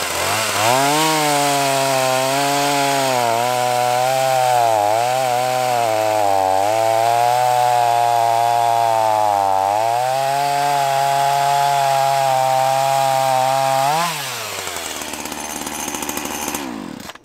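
Ryobi RY3716 37cc two-stroke gas chainsaw revving up and cutting through a log at full throttle, its pitch dipping several times under load in the wood. About fourteen seconds in the throttle is released and it drops to idle, then shuts off just before the end.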